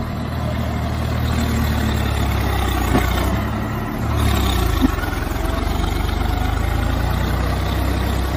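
Swaraj 744 4WD tractor's three-cylinder diesel engine running steadily under load while the tractor is stuck in deep mud. The engine note dips briefly about four seconds in and then picks up again, with a couple of short knocks.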